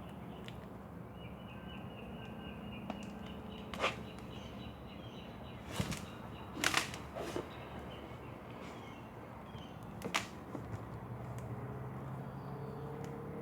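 A few sharp clicks and taps over a steady low hum, from handling a tire plug insertion tool as it is worked into the punctured tire.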